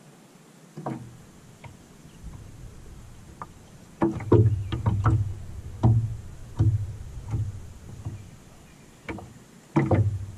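Small waves slapping against the hull of a small fishing boat: a string of hollow knocks, irregularly spaced about one every half to three-quarters of a second, starting about four seconds in and coming again near the end.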